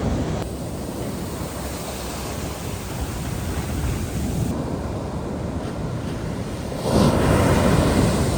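Ocean surf washing on the beach, with wind buffeting the microphone. A louder rush of surf comes in near the end.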